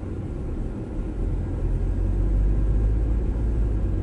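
Car driving: a steady low rumble of engine and road noise that grows louder about a second in as it picks up speed.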